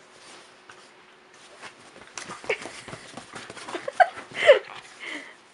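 A Border Terrier and a Chihuahua-Dachshund cross puppy play-fighting: short yips and whines that bend up and down in pitch, several in quick succession from about two seconds in, with scuffling. The loudest calls come near the end.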